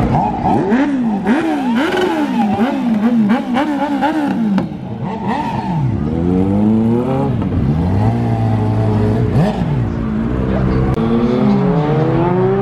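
Sport motorcycle engines revving in quick throttle blips, about two a second, for the first few seconds. Then the bikes pull away, the engine pitch climbing and dropping in long runs through the gears.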